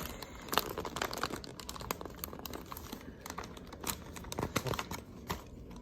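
A potato chip bag and its glossy paper wrapper crinkling and crackling in irregular bursts as they are handled and pressed into place.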